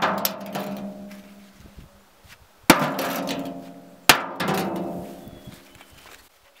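Bricks landing in a steel wheelbarrow tray: three hard clanks, one at the very start and two more about 2.5 and 4 seconds in, each leaving the metal tray ringing and fading away over a second or two.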